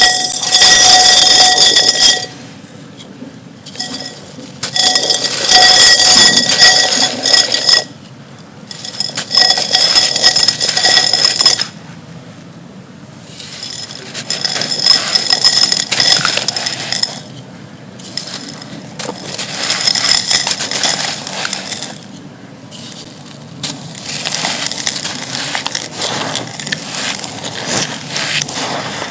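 Gritty, dusty clay being crushed and crumbled, in bursts of two to three seconds with short pauses between them. The first few bursts carry a high, ringing clink.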